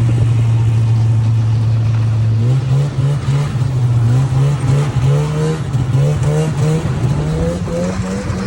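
A vehicle engine running at a steady pitch. About two and a half seconds in, its pitch starts to climb in uneven steps as it speeds up.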